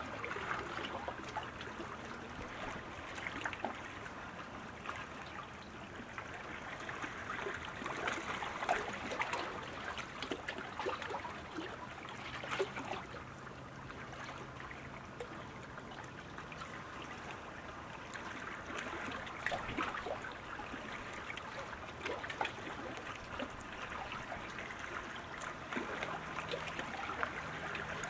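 Water lapping and trickling, with many small irregular splashes over a steady wash.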